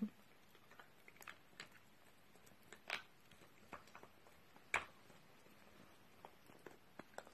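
Small dog gnawing on a long chew, its teeth making faint, irregular crunching and clicking sounds, with a few louder cracks.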